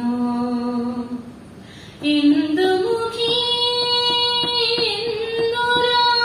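A woman singing solo into a handheld microphone, drawing out long notes. After a low note she pauses briefly, then climbs step by step to a higher note held with a slight waver, and lets it fall near the end.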